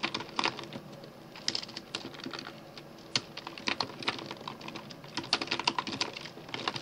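Typing on a computer keyboard: quick runs of key clicks with short, irregular pauses between them.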